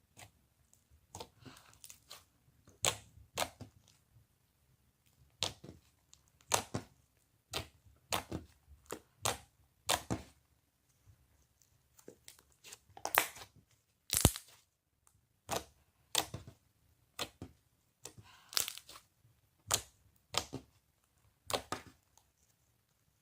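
Slime being squished and stretched by hand, giving irregular sharp pops and crackles, a few at a time with short quiet gaps between. The loudest pops come about halfway through.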